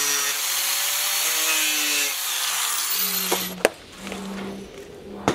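Corded power tool cutting through the metal front bolts of a motorcycle seat pan: a harsh grinding noise for about three seconds, then the motor winds down with a falling whine.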